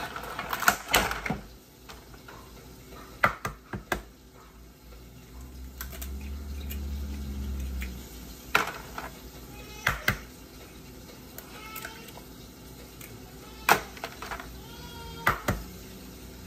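Eggs being cracked against the rim of a glass mixing bowl: sharp taps every few seconds, often two close together as each shell is knocked and split open.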